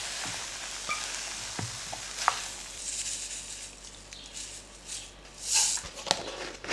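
Hot stir-fried noodles being pushed with wooden chopsticks from a frying pan into a plastic lunch container: a faint sizzle with light taps and scrapes. Near the end, a louder rustle and clicks as a plastic lid is fitted on.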